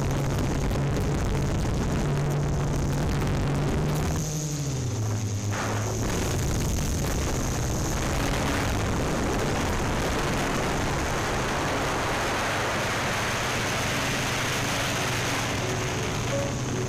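Yuneec Typhoon Q500+ quadcopter's electric motors and propellers humming steadily in flight over a rushing hiss. About four seconds in, the hum glides down in pitch, then holds steady at the lower pitch.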